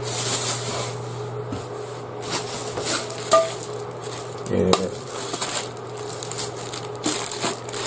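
Metal camping gear being handled and put down: scattered clinks and clatter of metal items, with a brief ring a little past three seconds.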